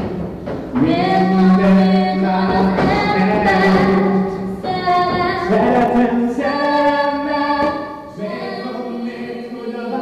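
A group of voices, women's and children's among them, singing a song from a stage musical in long held notes, with a brief break just after the start and a quieter passage near the end.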